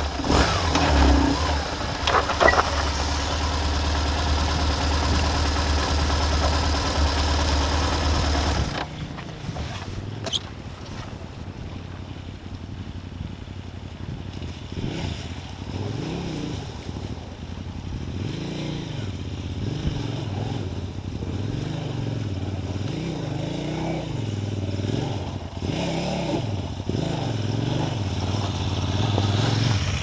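Motorcycle engine running steadily at low speed. About nine seconds in it cuts off abruptly, and another motorcycle is heard more faintly, its revs rising and falling repeatedly as it is ridden through a shallow, rocky river.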